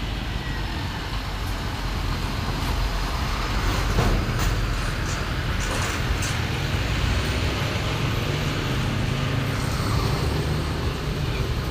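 Road traffic: heavy vehicles' engines and tyres running past steadily, swelling a little about four seconds in.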